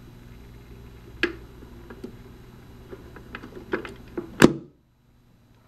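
Record changer turntable of a vintage all-in-one stereo running with a steady low hum, while a series of sharp clicks and knocks builds to a loud clunk about four and a half seconds in. The sound then cuts off abruptly.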